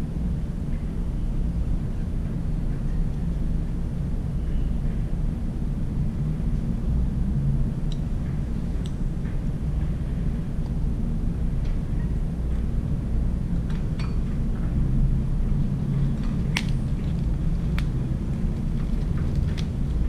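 Steady low rumble of outdoor background noise, with a few light clicks of chopsticks against dishes in the second half.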